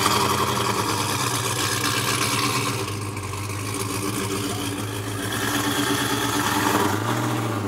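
A vehicle engine idling steadily, with a slight rise in pitch near the end.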